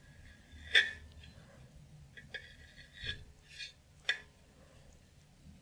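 A few sharp light clicks of a modeling tool against the metal turntable while gum paste is being shaped, the loudest about a second in and another about four seconds in.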